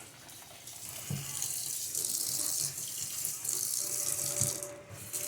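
Water running from a kitchen faucet into the sink, coming on about a second in and breaking off briefly near the end.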